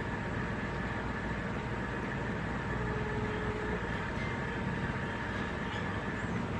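Steady low rumble and hiss of background noise, with a brief faint tone about three seconds in.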